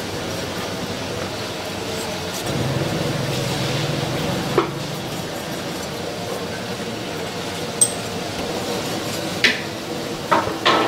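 Kitchen utensils clinking against cookware, about five sharp clinks in the second half, over a steady background of cooking noise.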